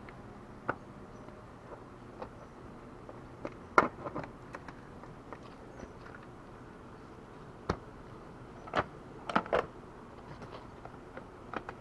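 A few scattered clicks and knocks of an electric dirt bike's seat being worked onto its hinges: one sharp knock about four seconds in, another near eight seconds, then a quick cluster just after nine seconds.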